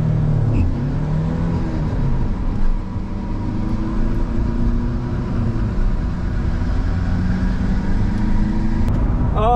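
Turbo-diesel VW Golf Mk6 heard from inside the cabin while driving down a drag strip, with steady engine and road noise. The engine pitch climbs slowly, dips about halfway through, then climbs again.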